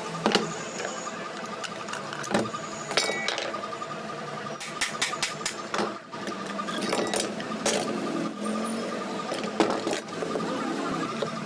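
Scattered sharp clicks and knocks of hand work on a ceiling fan's motor and bearing parts, over a steady faint background hum.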